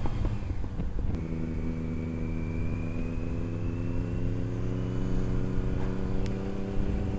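Sport motorcycle engine on its stock exhaust, running at a steady speed under light throttle while cruising, with a faint high whine rising slowly over it.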